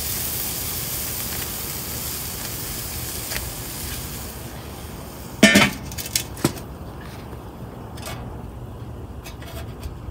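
Meat skewers sizzling on a charcoal kettle grill, a steady hiss for the first four seconds or so. About five and a half seconds in, the grill's metal lid is set down with a loud ringing clank, followed a second later by a lighter knock.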